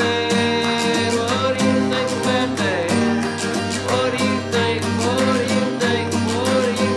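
Background music: a strummed acoustic guitar with a voice singing, a homemade folk-style song.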